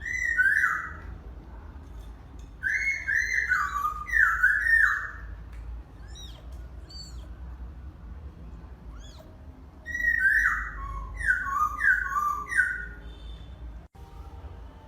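Three runs of short, high, whistle-like calls, each note falling in pitch, with pauses between the runs.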